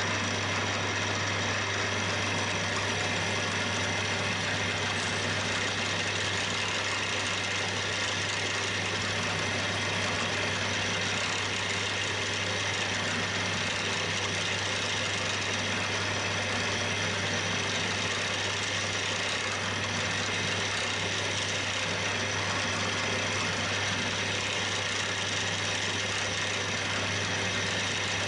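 Milling machine spindle running steadily with a low hum while a small drill bit drills a fixing hole into the end of a finned engine cylinder.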